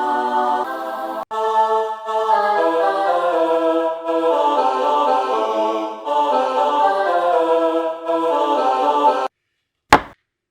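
Background music of held, chant-like choral notes that changes chord every second or so and stops about nine seconds in, followed by one short sharp sound near the end.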